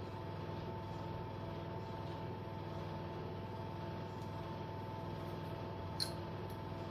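Steady low background hum with a thin, constant high whine; one faint click about six seconds in.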